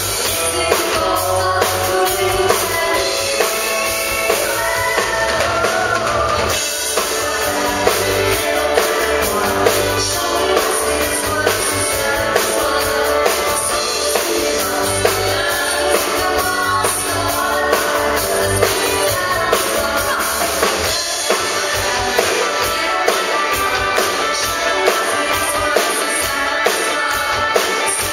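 Live country band amplified through a PA: a woman singing into a microphone over drum kit, bass and electric guitar.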